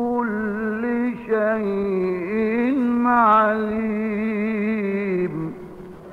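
A single unaccompanied male voice chanting a religious invocation, drawing one syllable out into a long melismatic line with wavering ornaments. The voice stops about five seconds in, leaving only faint hiss.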